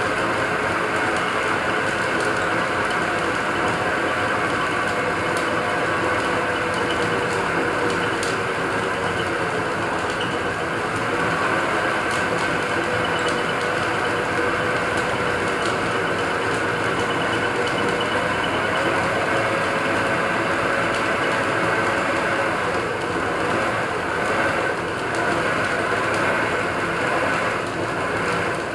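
Small metal-turning lathe running steadily with its chuck spinning, a constant mechanical whine and rumble.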